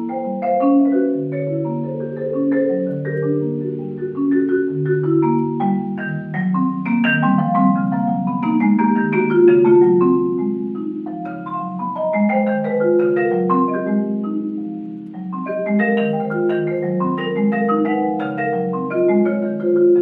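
Solo concert marimba: a steady flow of quick struck notes in the upper range over longer-ringing low notes. It swells louder near the middle and eases off about three-quarters of the way through.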